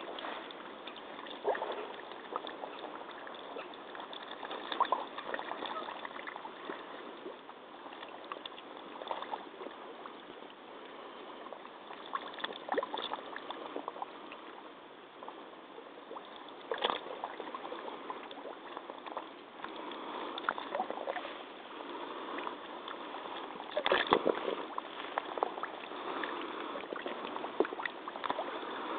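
Muddy water sloshing and splashing around rubber hip waders as the wearer wades and shifts in a deep mud pool, with irregular louder splashes, the loudest about 24 seconds in. Heard thin through a flip phone's microphone at the water's edge.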